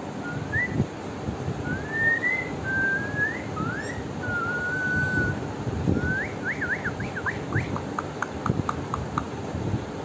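Indian ringneck parrot whistling a string of clear notes: short rising whistles, a long level note about halfway through, then quick up-and-down whistles and a run of short falling notes near the end.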